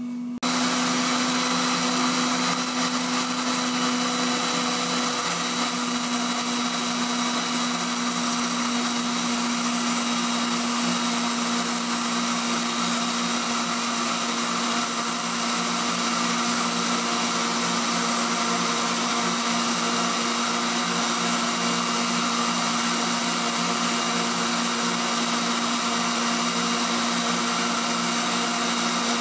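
Tool post grinder comes on about half a second in, then runs steadily: a high motor whine over the grinding hiss of its 46-grit wheel working inside the taper bore of an ER40 collet chuck turning in the lathe.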